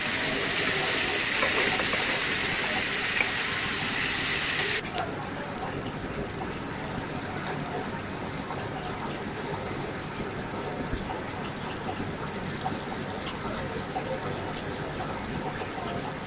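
Chicken pieces frying in masala in a pan: a steady sizzling hiss that drops suddenly to a quieter sizzle about five seconds in.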